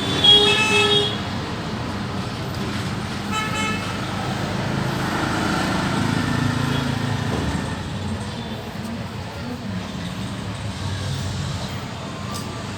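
A vehicle horn toots twice, a loud short blast near the start and a fainter one a few seconds later, over steady road traffic noise.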